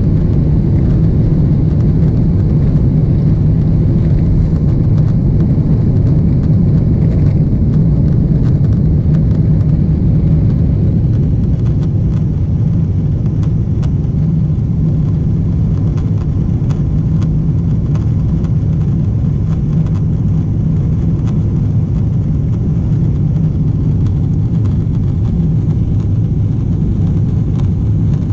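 Cabin noise of a Boeing 777-300ER during its takeoff roll and initial climb, heard from a rear window seat: a loud, steady low rumble from the GE90 engines at takeoff thrust. The rumble eases slightly about twelve seconds in as the jet leaves the runway.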